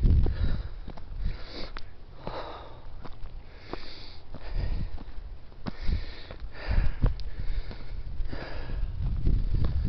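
A hiker breathing hard and sniffing through the nose as he climbs, one breath about every second, with low thumps on the microphone under several of them.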